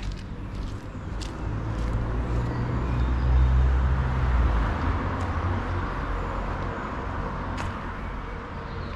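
A car passing by, getting louder to a peak about three and a half seconds in, then fading away.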